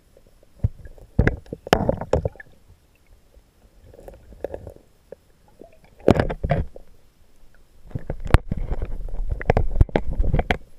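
A GoPro in its waterproof housing, handled underwater: irregular knocks and clicks against the case, with low rumbling water noise from the hand moving it. A longer spell of rumbling near the end stops abruptly.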